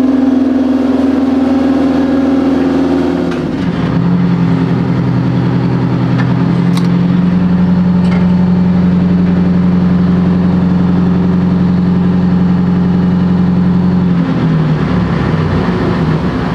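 Detroit Diesel 8V71T two-stroke turbo V8 diesel running loud and steady, then dropping to a lower steady speed about three and a half seconds in, and slowing and dying away near the end. It is running with a rag left in the turbo intake, half blocking it, and is smoking heavily.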